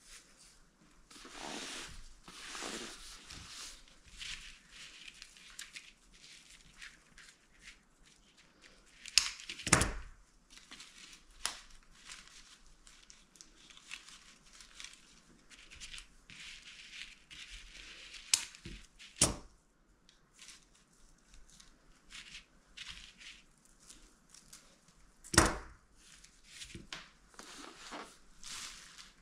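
Hands working with craft materials: irregular rustling, crinkling and tearing, with scattered sharp clicks, the loudest about ten, nineteen and twenty-five seconds in.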